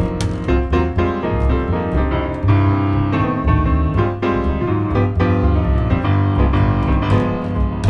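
Jazz piano solo on a grand piano, with an upright double bass playing low notes underneath.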